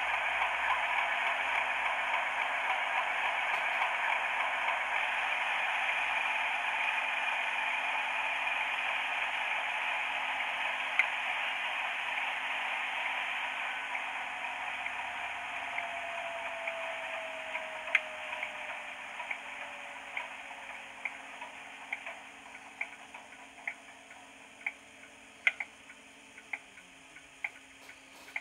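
Class 31 diesel engine sound from a Legomanbiffo ESU DCC sound decoder, playing through the model locomotive's small speaker and running down: the engine noise fades steadily, a whine slides down in pitch, and near the end the low hum drops away as the engine stops. From about two-thirds of the way in, a sharp tick repeats roughly once a second.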